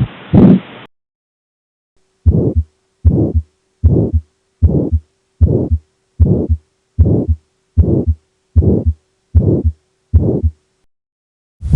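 Recorded heart sounds as heard through a stethoscope: a steady series of about eleven beats, roughly one every 0.8 seconds (about 75 a minute), over a faint steady hum. A previous recording ends just under a second in, with a second of silence before the beats start.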